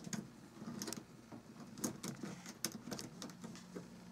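Faint scattered clicks and rustles of hands fitting a steel hose clamp around a rubber drain hose on a PVC pipe fitting.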